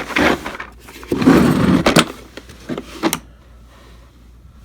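Hard plastic tool case being handled: scraping and sliding noises, the loudest about a second in, then a few sharp clicks.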